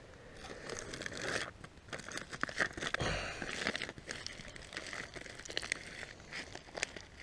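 Foil-faced insulated pot cosy crinkling as it is handled, a run of small crackles and rustles.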